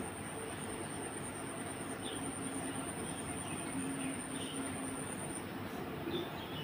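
Steady room noise with a thin, high-pitched continuous trill that stops shortly before the end.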